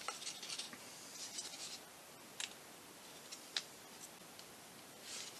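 Faint scratching of a hobby blade cutting into balsa wood in short strokes, with a few sharp light clicks in the second half.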